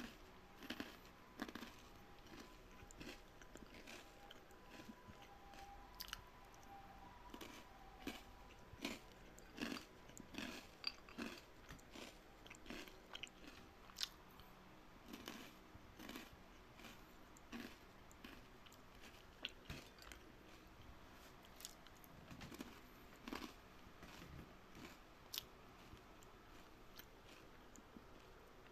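Watermelon being bitten and chewed: faint, crisp, juicy crunches come irregularly, about one or two a second.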